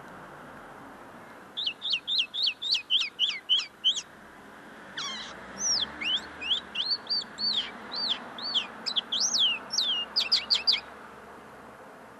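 Common linnet singing: a quick run of repeated twittering notes starts about a second and a half in, and after a short pause a longer run of varied rising and falling whistled notes ends in a few rapid notes near the end. The song is still not fully polished, as its keeper says.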